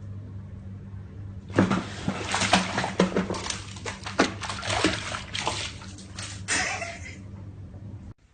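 Water splashing and sloshing in quick irregular bursts, starting about a second and a half in and dying away after about five and a half seconds.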